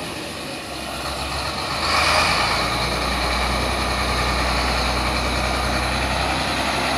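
Diesel engine of a Foton dump truck idling, a steady low drone that grows louder about two seconds in and then holds.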